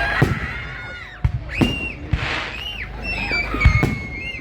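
Fireworks display: several whistling fireworks shrieking at once, some rising then falling in pitch and one held steady through the second half. Sharp bangs come about a second and a half in and again near the end.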